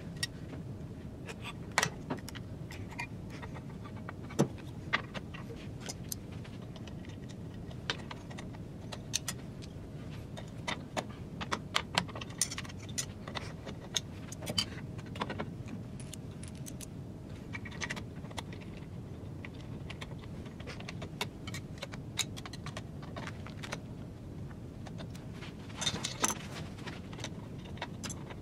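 Steel parts and hand tools clinking and knocking irregularly, with scattered sharp clicks, as a web guide actuator's carriage and guide rods are set into their mounting and bolted down with a T-handle hex key.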